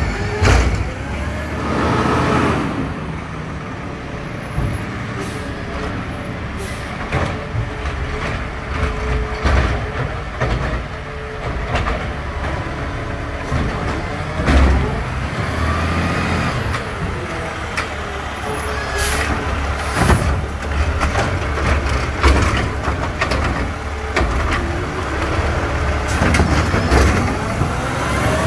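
McNeilus automated side-loader garbage truck working curbside bins: its diesel engine runs steadily and rises and falls in pitch several times, with sharp bangs scattered throughout as bins are handled and dumped. There are also air brake hisses.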